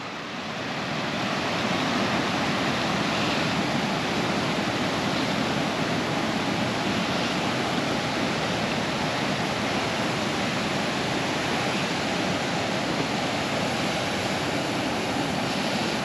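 Creek water rushing over rocky cascades and a small waterfall: a steady, even rush that swells over the first couple of seconds and then holds.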